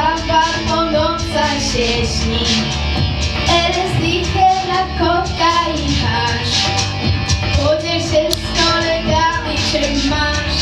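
A young girl singing a song into a microphone over instrumental accompaniment with a steady beat.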